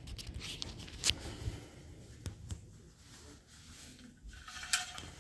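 Rustling with scattered light clicks, a sharp click about a second in and another near the end.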